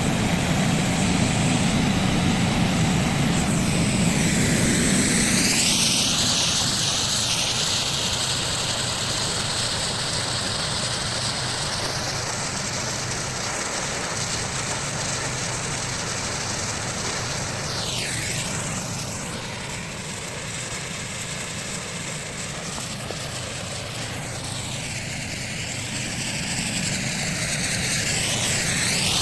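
Artificial snow-making machine running: a steady propeller-fan whir with a hiss of spray, its tone shifting in slow sweeps, a little quieter in the second half before swelling again near the end.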